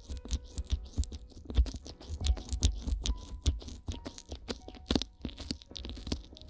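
Fingers massaging ears slathered in petroleum jelly, right against in-ear binaural microphones: a dense run of wet crackles and rubbing, over soft background music.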